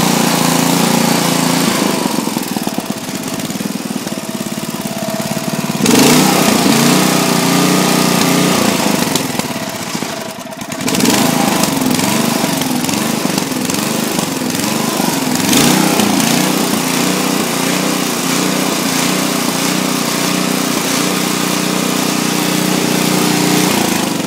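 5 HP Briggs & Stratton single-cylinder four-stroke engine running fast. Its speed dips and recovers twice, once early and once about halfway, then holds steady. It is running again after its sticking intake valve was freed.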